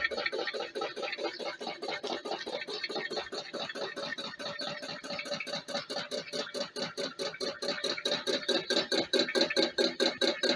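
Home-built alpha-type Stirling engine running steadily, with a rhythmic knock about four to five times a second that grows louder near the end. The builder puts the knocking down to the piston jumping up and down on its carbon graphite slides.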